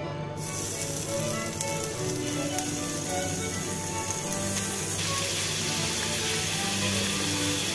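Chunks of meat sizzling as they fry in a non-stick pan. The sizzle grows much louder about five seconds in, under background music.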